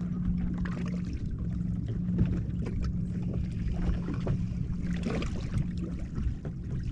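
Waves lapping and slapping against a bass boat's hull, with wind on the microphone, under a steady low motor hum that stops near the end.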